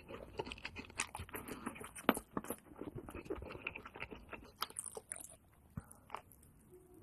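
Close-up biting and chewing of crispy fried chicken, with a dense run of crisp crunches that thins out and gets quieter near the end.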